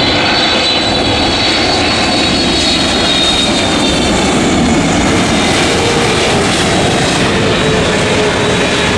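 Airliner's engines running loud and steady as the plane passes close, a dense rush with a high whine on top that drifts slightly lower.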